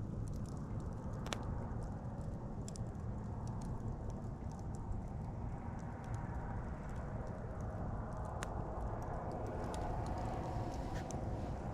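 Wood campfire burning with scattered sharp pops and crackles over a steady low rumble.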